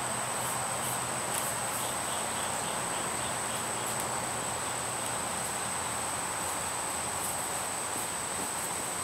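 Steady high-pitched insect drone, with a short run of faint chirps, about four a second, around three seconds in.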